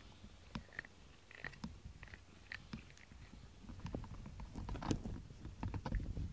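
A cat's fur being brushed with a rubber grooming brush close to the microphone: soft, irregular clicks and rustles. A low rumble and denser clicking build up about four seconds in.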